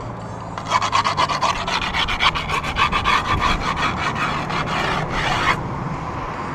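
Skateboard grip tape being rubbed along the edge of the deck with a small hand tool in quick back-and-forth rasping strokes, several a second, scoring the tape's edge before it is trimmed. The rasping starts about a second in and stops abruptly after about five seconds.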